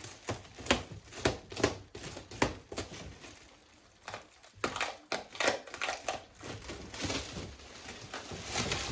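Packaging being crumpled and handled, with irregular crackles, crunches and clicks.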